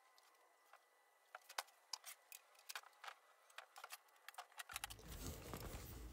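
Near silence with faint, scattered light ticks and clicks. A faint background hiss comes in near the end.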